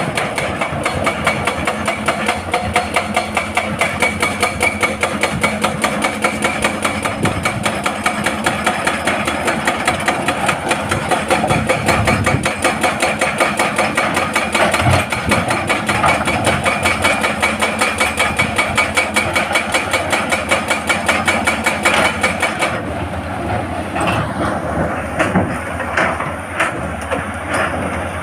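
Excavator-mounted hydraulic breaker hammering rock in a fast, even run of blows over the diesel engine's steady running. The hammering stops about 23 seconds in, leaving the engine running.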